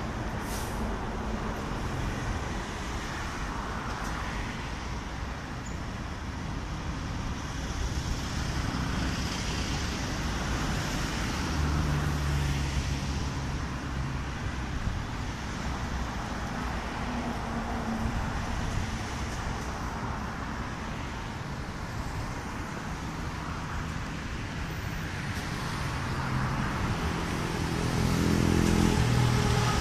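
Steady road traffic noise with the low engine hum of passing vehicles, growing louder about twelve seconds in and again near the end.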